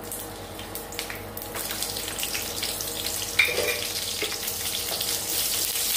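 Garlic cloves frying in hot sesame oil in a stainless-steel pan: a steady sizzle with small crackles that grows louder, stirred with a wooden spatula. One sharp knock about three and a half seconds in.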